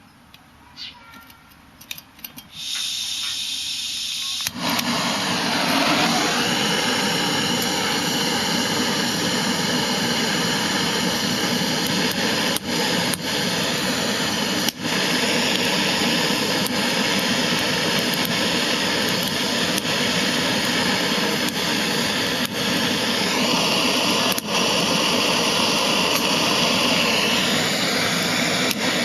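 A few light clicks, then the steady rushing hiss of an alcohol burner's flame, which builds over a couple of seconds and then holds at full strength.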